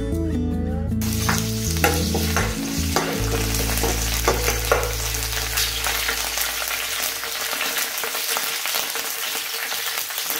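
Green chillies and curry leaves sizzling and crackling in hot coconut oil in a nonstick frying pan, with many small pops over a steady hiss. Background music ends about a second in.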